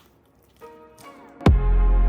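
Background electronic music: sparse and quiet at first, then a loud beat with heavy bass comes in abruptly about one and a half seconds in.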